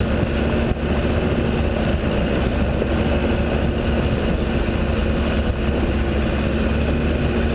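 Land Rover Discovery's diesel engine and tyres, a steady low rumble as it drives along a dirt and gravel track.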